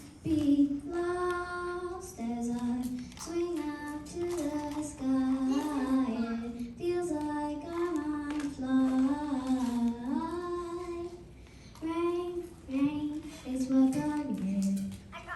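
A girl singing a cappella, solo and unaccompanied, in held, sliding melodic phrases with a short pause between lines.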